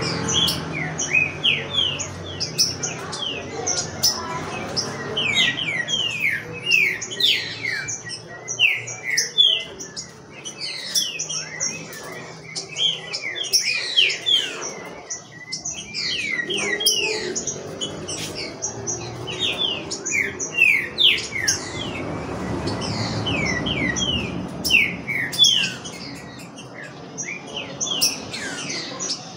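Caged green-winged saltators (trinca-ferro) calling while warming up to sing: many quick falling chirps in bursts and clusters. A low rumble swells briefly about three quarters of the way through.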